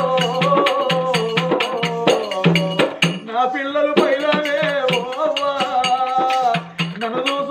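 Oggu katha folk singing: a voice sings long, wavering held notes over a steady, fast beat of drum and other percussion.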